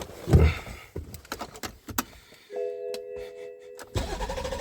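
A few clicks, then a steady chime-like tone held for about a second and a half; near the end the new starter motor on a BMW 730d's M57 diesel engine begins cranking with a steady whirr, turning the engine over without it firing.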